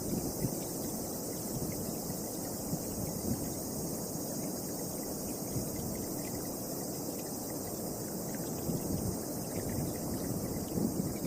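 Strong wind blowing in uneven gusts, with low rumbling buffets on the microphone. Under it runs a steady high chirring of insects.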